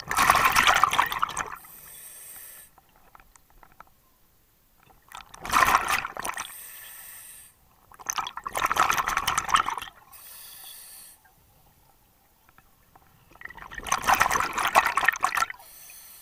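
Scuba diver breathing through a regulator underwater: four bubbling exhalations, about one every four seconds, each followed by a short thin hiss of the regulator on the next breath in.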